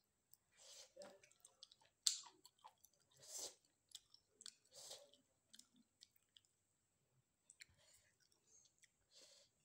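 A person chewing a handful of rice and dried fish close to the microphone: quiet, irregular wet mouth clicks and crunches, the sharpest click about two seconds in.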